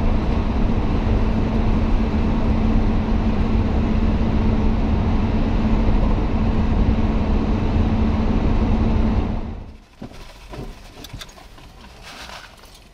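Road and tyre noise of a moving vehicle heard from inside, steady with a low hum. About three-quarters of the way through it drops away abruptly to a much quieter outdoor background with faint light crackles.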